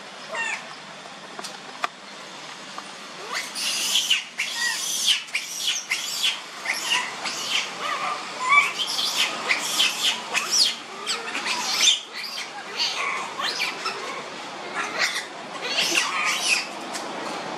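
Long-tailed macaques squealing: a dense run of short, high-pitched calls, many sliding in pitch, starting about three seconds in and going on for more than ten seconds.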